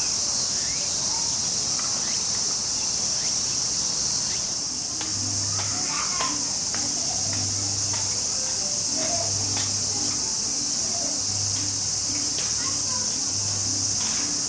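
Steady high-pitched insect chorus of crickets or cicadas. Scattered light clicks and faint short chirps sound over it, and from about five seconds in a low hum pulses on and off about every two seconds.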